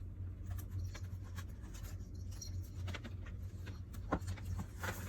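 Light scratching and rustling handling sounds, scattered short clicks with a sharper one about four seconds in, over a steady low hum.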